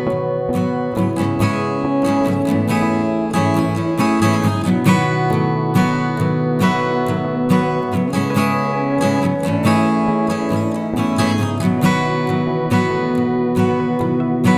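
Background music: acoustic guitar strumming at a steady pace.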